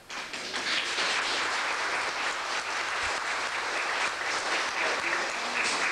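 A roomful of people applauding. The clapping breaks out all at once and then goes on steadily.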